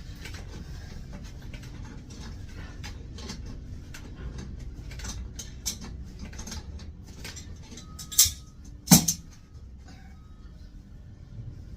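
Metal hand tools clicking and clanking against a toilet's water shut-off valve and pipe as it is taken apart, with many light ticks and two sharp clanks about eight and nine seconds in, the second ringing briefly.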